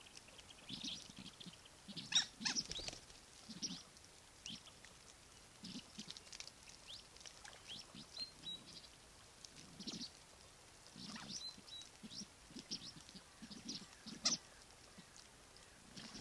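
A flock of Mandarin ducks calling: many short, high calls in irregular runs, the loudest about two seconds in and again near the end.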